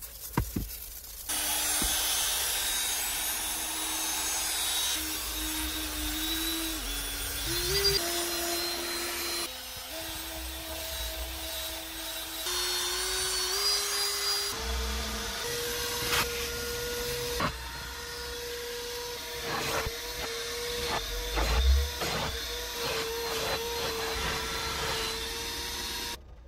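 Cordless drill spinning a brush attachment against car carpet: a steady motor whine over a bristle scrubbing noise, its pitch stepping up and down as the load changes. At the very start there are a couple of quick squirts from a trigger spray bottle, and there are a few short knocks later on.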